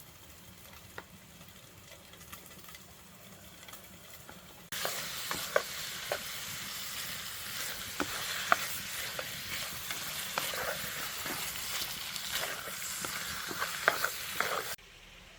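Food frying in a pan, sizzling, with the clicks and scrapes of a utensil stirring it. The sizzling starts suddenly about five seconds in and cuts off just before the end. Before that there are only a few faint clicks.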